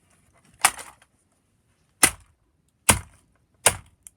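Four sharp, hard blows striking an old alarm clock radio, the first about half a second in and the other three roughly a second apart.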